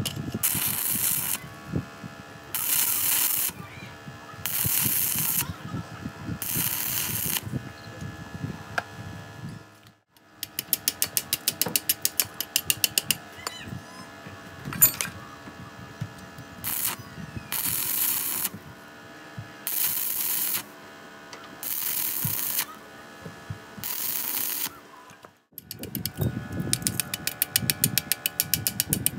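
Stick (MMA) welding arc from a DC inverter welder crackling in short bursts, under a second each and about two seconds apart, four at a time: tack welds being laid. Between the runs and again near the end comes rapid, even tapping of a chipping hammer knocking slag off the welds.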